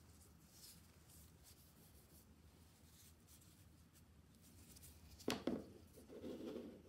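Faint wiping of a cloth rag over a freshly oiled wooden handle, then about five seconds in two sharp clacks as a plastic spring clamp holding the handle is set down on the bench, followed by a brief scrape.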